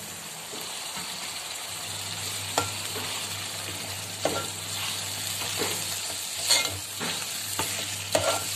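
Mutton pieces frying in hot oil with ginger-garlic paste in a metal pot: a steady sizzle that slowly builds, with a metal spoon scraping and clinking against the pot several times as the meat is stirred.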